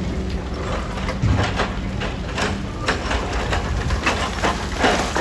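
Heavy machinery engine running with a low hum that eases about halfway, under irregular knocks and clatter.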